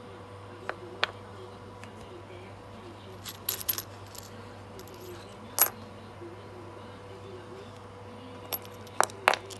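Metal soldering-iron tips clinking against each other and tapping down on a wooden workbench: scattered sharp clicks, a quick cluster about three and a half seconds in, the loudest one about five and a half seconds in, and several more near the end, over a faint steady hum.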